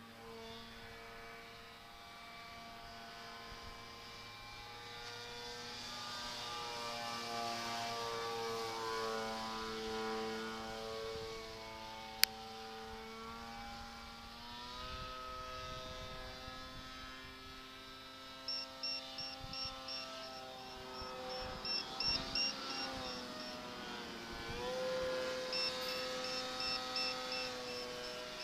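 Electric motor and propeller of a homemade RC model plane whining overhead, several tones sliding up and down in pitch as it flies about. A single sharp click comes about twelve seconds in, and from the middle on a rapid run of short high beeps sounds over it.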